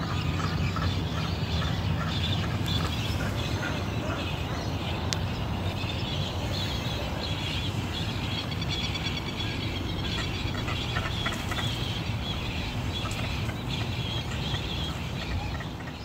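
Many birds calling and chattering at once, a dense mix of short calls over a steady background noise.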